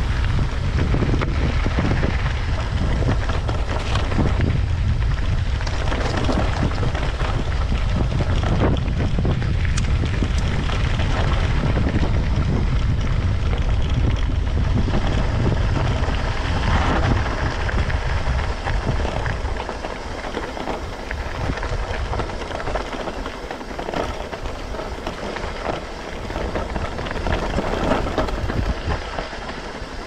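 Wind buffeting the microphone over mountain bike tyres crunching and rattling across loose stony gravel. The low wind rumble eases about two-thirds of the way through, leaving the gravel crackle clearer.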